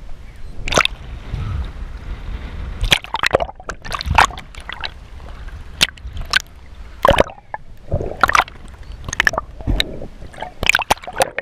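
Water sloshing, splashing and gurgling around an underwater camera as it moves at and just below the sea surface, with a dozen or so irregular sharp splashes and knocks over a low rumble.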